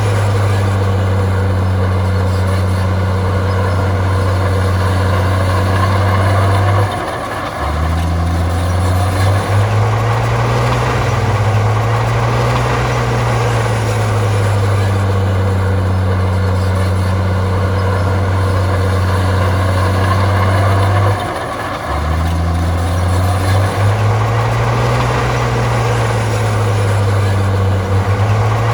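Heavy diesel engine of a Komatsu bulldozer running under steady load. Twice the engine note dips briefly, then rises and falls for a few seconds before settling again, as the machine works through its push cycles.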